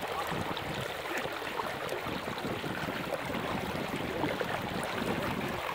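Water sloshing and splashing with small drips as a wading fisherman works a hand fishing net in the water.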